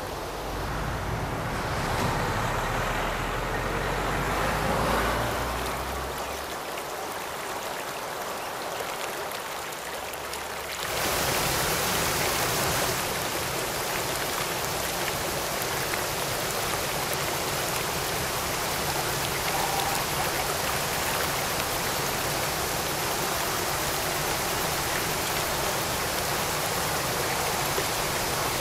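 Water rushing steadily over a low weir in a concrete canal. It comes in suddenly about eleven seconds in and holds steady. Before that there is a low rumble for the first several seconds.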